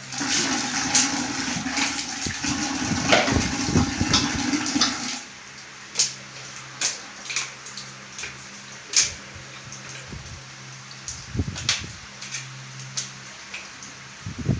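Water rushing, with a steady motor hum under it, for about five seconds before it cuts off suddenly. A few sharp clicks and taps follow over a faint steady hum.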